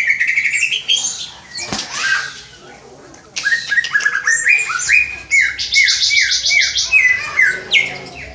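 Cucak ijo (green leafbird) singing loudly: a short phrase at the start, then after a pause a run of repeated down-slurred notes, about two a second, each topped by a fast buzzy trill.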